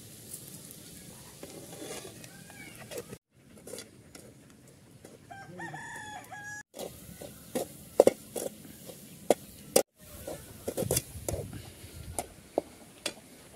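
A rooster crowing once, about six seconds in. In the second half come sharp metal clicks and scrapes of a slotted spoon against the aluminium cooking pan as potato masala is stirred.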